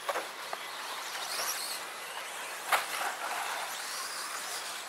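Electric RC stadium trucks running around the track: a high whine from their motors rising and falling over steady tyre noise. There is one sharp knock a little under three seconds in.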